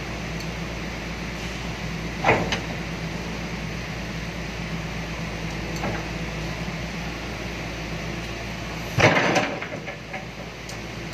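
Excavator's diesel engine running steadily while its bucket presses a solid tyre down onto a wheel rim, with a sharp knock about two seconds in and a louder clunk near the end, after which the engine's low hum eases off.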